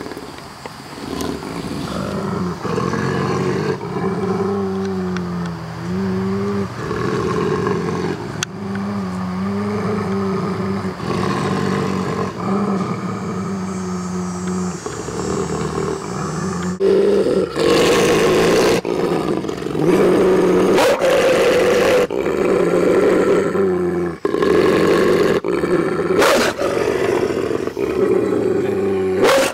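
Two wolves growling at each other in a dispute, voicing their quarrel rather than fighting. Long, low growls waver in pitch. After about seventeen seconds they turn into louder, harsher snarls in repeated bursts with short breaks.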